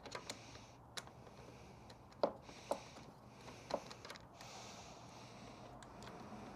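Faint scattered clicks and taps of hand tools and parts being handled during motorcycle cooling-system work, about six in all, the loudest about two seconds in. A person's breathing can be heard between them as soft hissing.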